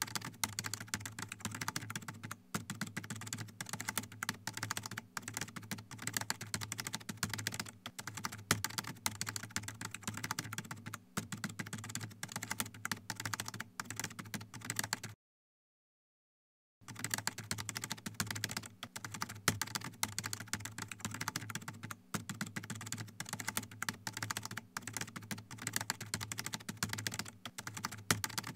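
Rapid computer-keyboard typing sound effect, a steady run of clicks that stops for about a second and a half about halfway through, then resumes.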